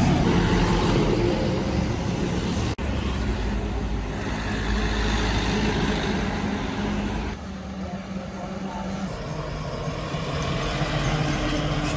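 Dump truck engine running with a steady low hum. The sound cuts off sharply about three seconds in and changes suddenly again just past seven seconds.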